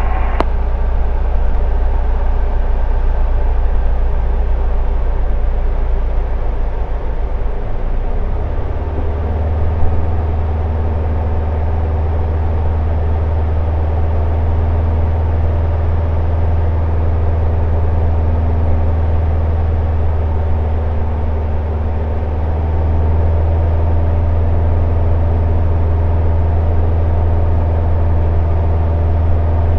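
Light single-engine propeller aircraft's piston engine and propeller droning steadily, heard from inside the cockpit. About eight or nine seconds in, the drone shifts to a slightly higher note and then holds steady.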